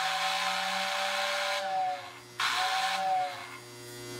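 Lionel postwar whistle tender sounding its fan-driven whistle: a long, airy two-tone hoot, then a shorter second one about two and a half seconds in, each sagging in pitch as it cuts off. A steady electrical hum carries on underneath and after.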